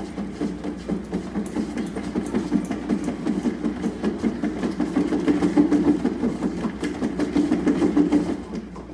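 A large upright cat exercise wheel rolling with a steady rumble as a cat runs inside it, with a rapid clatter over the top. It gets a little louder in the second half and drops off near the end.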